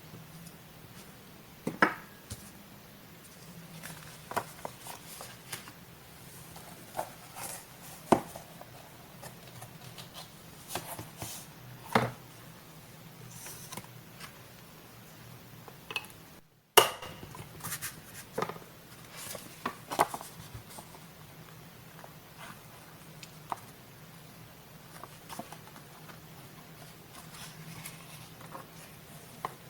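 Close-up paper-collage handling sounds: scattered light taps, clicks and rustles of paper, scissors and glue, with a few sharper knocks and a brief drop to silence about halfway through.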